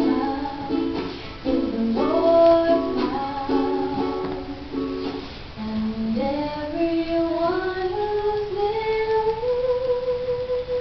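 Ukulele strummed with singing; about halfway through the strumming drops away and a single voice sings a line that steps up in pitch and ends on a long held note.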